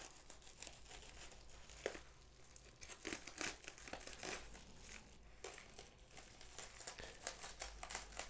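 Faint crinkling and rustling of a plastic poly mailer as it is handled and slit open with a folding knife, with scattered small crackles and one sharper tick about two seconds in.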